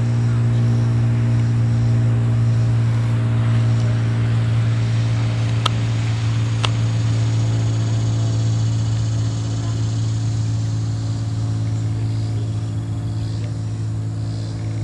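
Steady low hum of constant pitch, like a motor or engine running, easing off slightly after about nine seconds, with two sharp clicks around six and seven seconds in.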